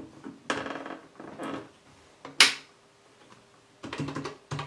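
Power plug being pushed into the back of a vintage Privileg (NCM) table calculator, with handling clatter and one sharp click. Near the end comes a quick run of clicks as its keys are pressed.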